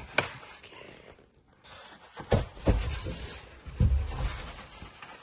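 Styrofoam packing pieces being pulled off and handled, with scraping and rubbing and a few dull bumps between about two and four seconds in.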